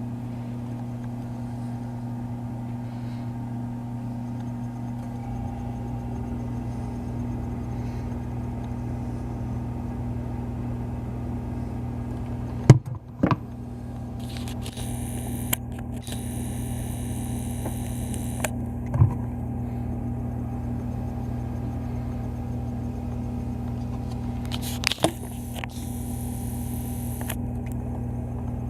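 Steady electrical hum from a running appliance, interrupted by a few sharp clicks and short bursts of hiss.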